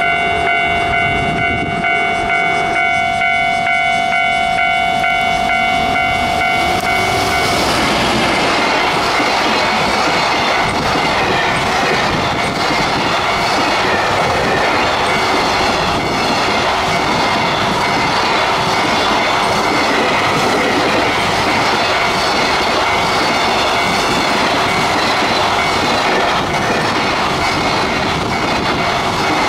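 A JR Freight EF210 electric locomotive's horn sounds a long steady tone for the first seven seconds or so as the freight train approaches. Then the container wagons pass close by with a continuous rumble and clickety-clack of wheels over the rail joints.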